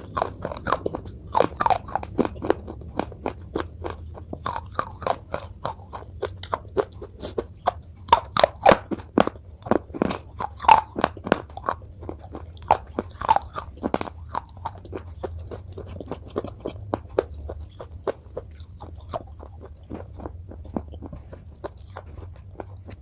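Close-miked biting and chewing of a hard, crunchy piece: many sharp crunches in quick succession, loudest and thickest about a third of the way in, then thinning to lighter chewing near the end.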